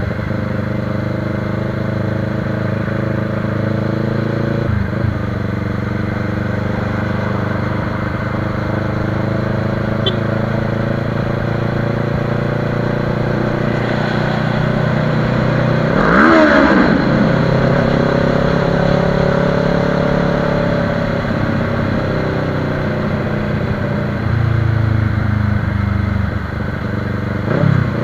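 Motorcycle engine running under way from the rider's seat, with a steady note. Halfway through it revs up sharply and falls back, the loudest part. There are brief breaks in the note near the start and near the end.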